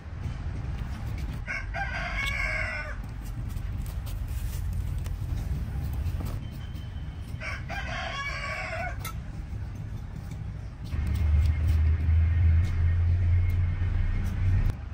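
A rooster crowing twice, each crow about a second and a half long and some six seconds apart, over a steady low rumble that grows louder for the last few seconds.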